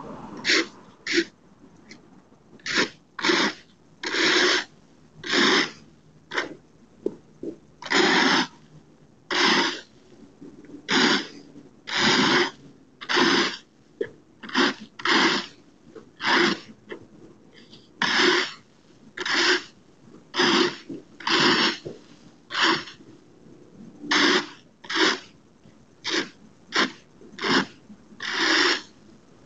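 Rake scraping across an asphalt driveway in repeated strokes, about one a second, each a short rasping scrape, gathering fallen leaves.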